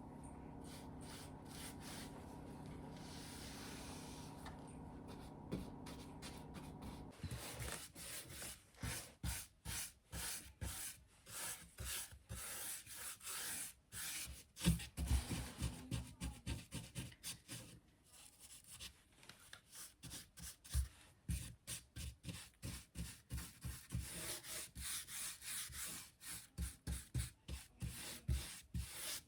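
Hand strokes rubbing back and forth over wooden trim, about two strokes a second, starting after a few seconds of faint steady hum and pausing briefly about halfway through.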